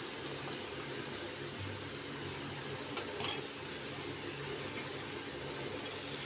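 Onion, ginger and garlic spice paste sizzling with a steady hiss in an aluminium kadai, fried down until the oil separates. A few faint clicks come from the spatula and a soft bump about three seconds in.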